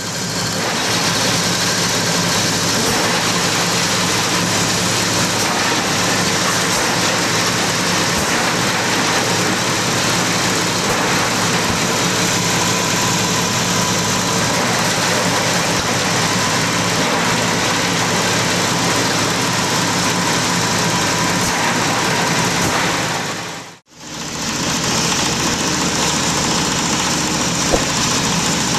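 Multipurpose chopper-shredder running and grinding up branches and leafy stalks, driven by a small red single-cylinder stationary diesel engine: a steady, loud mix of engine hum and chopping noise. It cuts off for a moment about three-quarters of the way through, then carries on as before.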